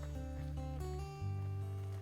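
Background instrumental music: plucked guitar notes over held bass notes.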